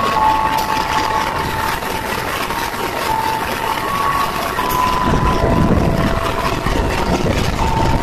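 CC204 diesel-electric locomotive engine running as the locomotive rolls slowly past, with a whine that jumps between a few fixed pitches: the odd engine sound this unit is known for. A low rumble swells about five seconds in and again near the end.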